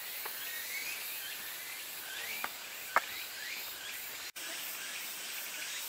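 Summer outdoor ambience of a steady, high-pitched insect chorus, with a few short chirps in the middle and two sharp downward-sweeping calls about two and a half and three seconds in.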